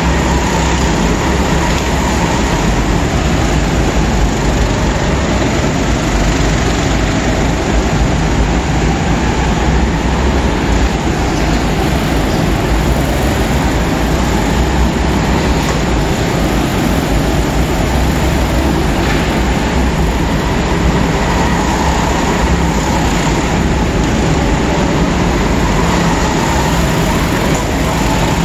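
Several go-kart engines running together on an indoor track, a continuous dense drone with faint rising and falling engine pitch as the karts accelerate and brake through the corners, smeared by the echo of a large hall.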